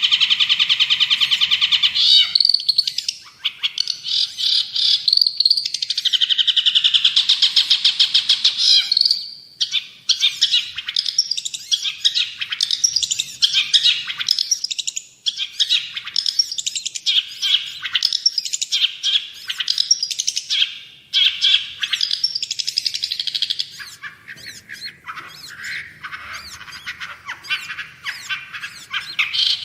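Long-tailed shrike (cendet) in full song: a long, continuous run of rapid chattering and trilling notes, broken by short pauses a few times.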